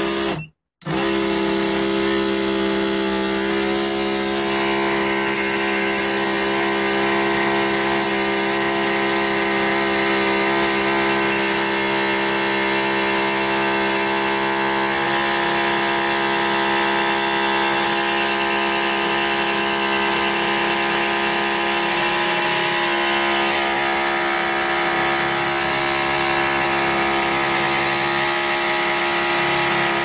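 A motor-driven machine running steadily with a strong hum and whine that holds one pitch, starting suddenly about a second in.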